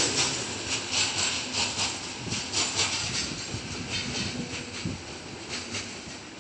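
Freight train of open gondola wagons rolling away, its wheels clacking over the rail joints. The clatter fades steadily as the end of the train recedes.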